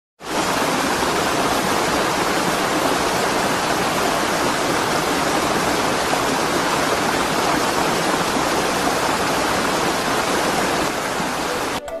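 Steady rush of water pouring down a cascading, terraced waterfall: an even hiss that cuts off suddenly near the end.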